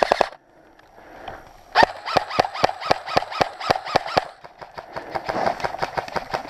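Airsoft guns firing: a steady string of sharp shots at about five a second, then fainter, quicker shots near the end.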